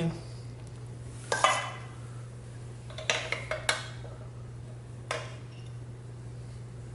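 Metal spoon clinking and scraping against a metal mini muffin tin as crumbly cauliflower mixture is packed into the cups. There are a few short clinks: about a second and a half in, a cluster around three seconds, and one near five seconds, over a steady low hum.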